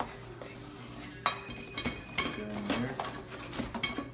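Handling noise from a Mossberg 500 shotgun fitted with a cable lock as it is packed into its cardboard box: a string of sharp metallic clinks and knocks, some briefly ringing, over a steady low hum.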